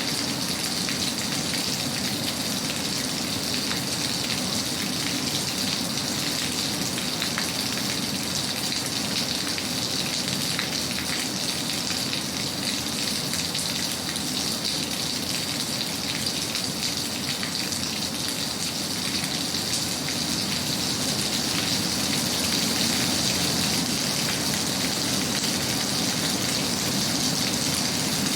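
Steady, even rain sound.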